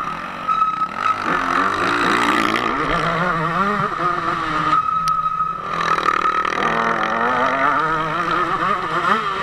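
KTM 150 SX two-stroke motocross engine under race throttle on a dirt track, revs climbing and falling repeatedly as the rider opens and shuts the throttle. About five seconds in it briefly drops off throttle before pulling hard again.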